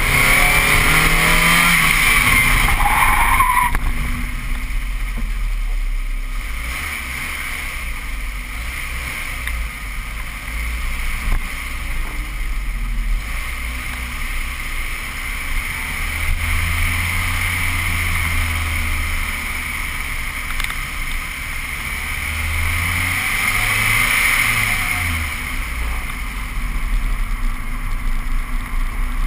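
Mazda Miata's four-cylinder engine running hard through an autocross course, its pitch rising and falling as the driver accelerates and lifts between cones, over a steady rush of road noise. Loudest for the first few seconds, then quieter.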